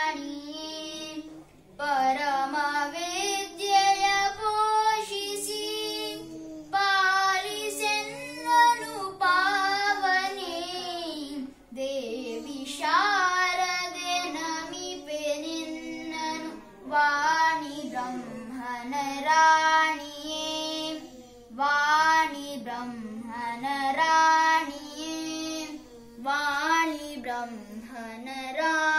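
A child singing a Kannada devotional song to the goddess Sharada, phrase after phrase with short breaks between.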